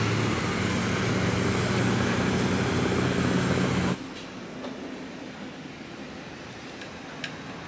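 River boat engine running loudly and steadily, with a low drone and water and wind hiss. It cuts off abruptly about four seconds in, giving way to quieter street ambience with a few faint clicks.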